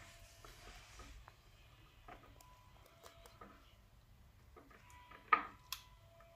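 Faint, scattered clicks and light taps of tomato slices being laid in a glass baking dish around a whole fish, with a sharper tap about five seconds in.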